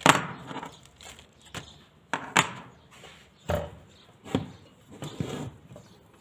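Knocks and clunks of a circular saw and its parts being handled and set down: one sharp knock right at the start, then about six softer separate knocks. The saw's motor is not running.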